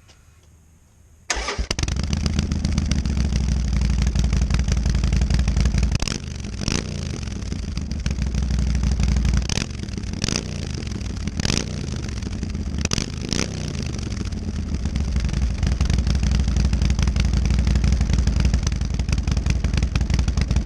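A 2018 Harley-Davidson Sportster 1200 Iron's V-twin, breathing through Wyatt Gatling slip-on mufflers with their baffles in, starts a little over a second in and idles. In the middle it is revved in about seven quick throttle blips, each falling back to idle, and then it settles into a steady idle.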